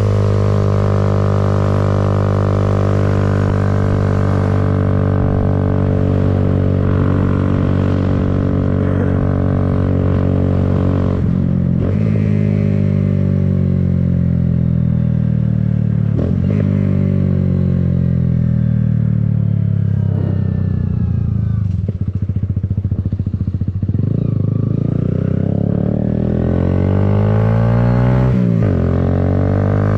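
Kawasaki Z125's small single-cylinder four-stroke engine running at a steady speed under way. The engine note then drops several times as the bike slows, and rises again over the last few seconds as it speeds up.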